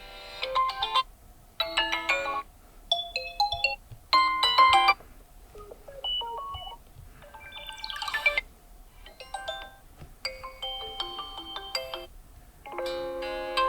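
Pre-installed Vivo S17 ringtones playing: short electronic melodies of bright, chiming notes, about a second each, one after another with brief pauses between them.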